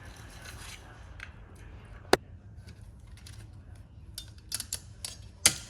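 Sharp metallic clicks and clinks of drum-brake hardware and hand tools being handled while rear brake shoes are reassembled: one click about two seconds in, then a quick cluster of clicks near the end, the last the loudest.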